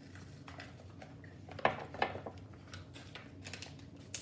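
Light clicks, rustles and scrapes of a spoon and ration food packets being handled, with two sharper knocks about one and a half to two seconds in and a small click near the end.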